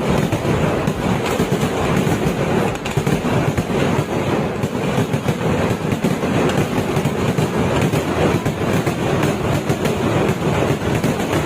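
Kerala vedikkettu fireworks: firecrackers going off in a dense, unbroken rattle of rapid bangs, with no pause.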